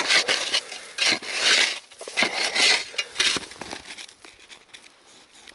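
Shovel digging into snowy ground, a series of crunching, scraping strokes over the first three seconds, then quieter.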